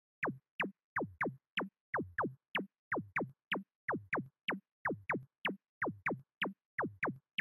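Electronic background music: a rhythmic pattern of short synth zaps, each a quick sweep falling from high to low pitch, about three a second, some coming in quick pairs.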